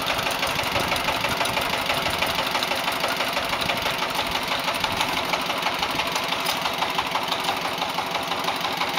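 Korean two-wheel power tiller's single-cylinder diesel engine running under load as it pulls its trailer, a steady rapid chugging.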